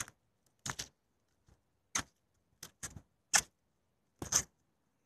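Footsteps crunching on a frozen, ice-crusted roof: short sharp crunches at an uneven walking pace, some of them doubled.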